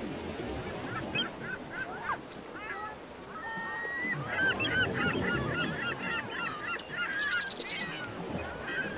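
A flock of birds calling: short calls, a few at first from about a second in, then many overlapping in a dense chorus from about four seconds on.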